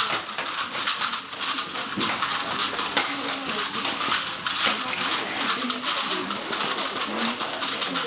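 Many Rubik's Cubes being turned at speed at once: a dense, continuous clatter of plastic cube layers clicking and rattling, with cubes now and then set down on the table.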